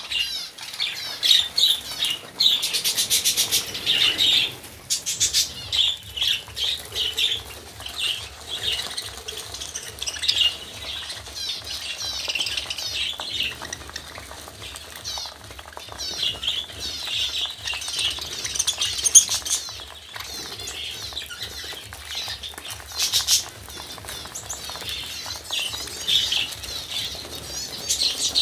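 A flock of budgerigars chattering and warbling with quick, overlapping chirps, broken a few times by short bursts of wing flapping.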